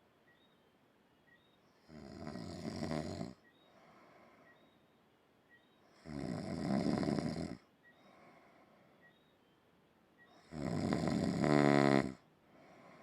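Soft snoring in slow breaths: three snoring inhales about four seconds apart, with quieter exhales between them. The last snore ends in a brief buzzing rattle.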